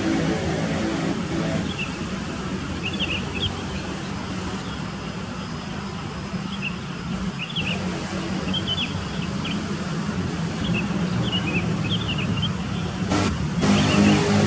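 Outdoor dawn ambience: a steady low rumble of distant vehicle traffic, with small birds giving short high chirps every second or so. The rumble grows louder near the end.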